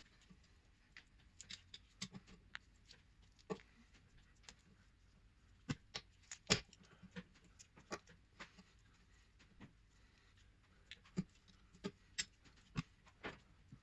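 Faint, scattered clicks and knocks of a large set of grips (slip-joint pliers) clamping and working the drop link's bush end along the anti-roll bar to force it off, the sharpest knock about six and a half seconds in.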